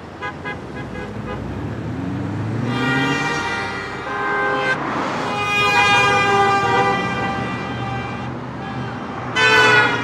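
Car horns honking from passing traffic: a few quick taps near the start, a long held honk through the middle, and a short loud honk near the end, over the noise of cars driving past.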